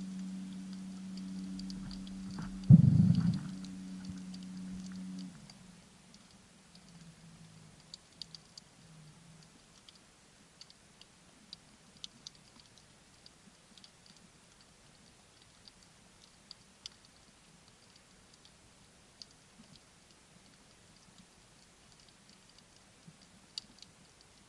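Underwater ambience: faint, scattered high clicks and crackles every second or so. For the first five seconds a steady low hum runs underneath, with one loud thump about three seconds in.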